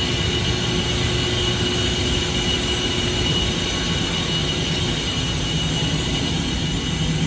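Steady mechanical-room drone of running HVAC equipment, with a thin high whine held throughout.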